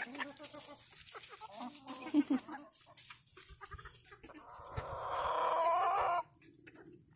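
Chickens clucking with short calls, then one long drawn-out call of nearly two seconds that grows louder and cuts off near the end.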